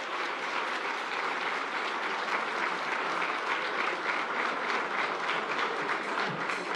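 Crowd applauding: many people clapping steadily.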